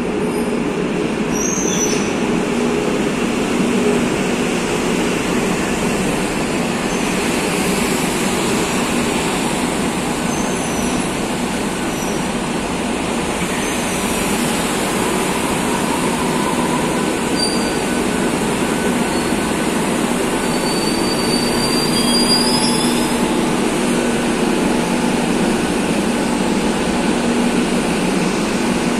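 Madrid Metro 2000-series train running into an underground station and braking to a stop, a steady rumble of wheels on rail with brief high-pitched wheel and brake squeals several times, most around twenty seconds in.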